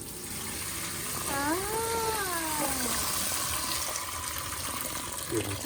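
Hot pasta water being poured out of a pot into a sink, a steady rush of water. A little over a second in, a drawn-out voice-like call rises and then falls in pitch over about a second and a half.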